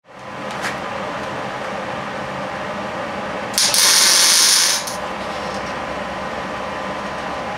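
MIG welding arc sizzling in one steady burst of just over a second, a short weld on a cast iron exhaust manifold, over a low steady shop hum.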